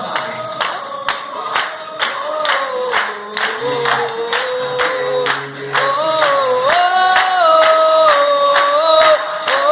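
Gospel choir singing long held notes, without clear words, over a steady sharp beat of about three strokes a second.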